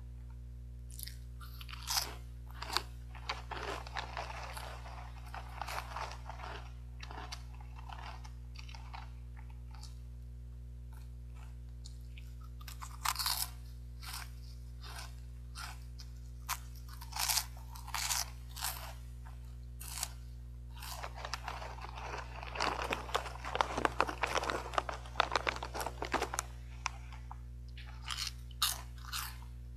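Caramel corn and peanut puffed snack being bitten and chewed: crisp crunches come in irregular bursts and are densest about three quarters of the way through, over a steady low hum.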